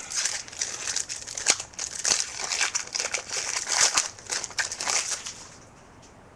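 Chromium trading cards and their pack wrapper being handled, giving a crinkling rustle broken by sharp little clicks as cards slide and snap against each other. It dies down about five and a half seconds in.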